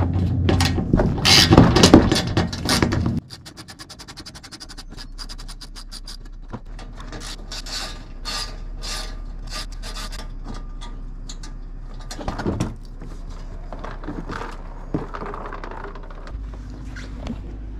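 Small hand ratchet with an 8mm socket clicking in short strokes and fast runs as screws are backed out of a plastic under-bumper shield, then the plastic shield scraping and rubbing as it is worked loose and pulled down.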